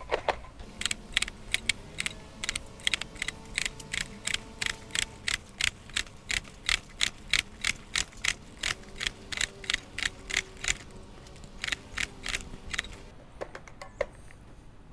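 Stihl AutoCut C 25-2 string trimmer head clicking steadily, about three clicks a second, as it is turned clockwise by hand to wind trimmer line onto the spool. The clicking pauses briefly about eleven seconds in and stops shortly before the end.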